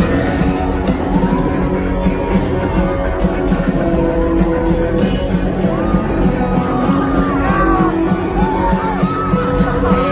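Rock band playing live, a singer's voice over guitar, bass and drums, with long held sung notes in the second half.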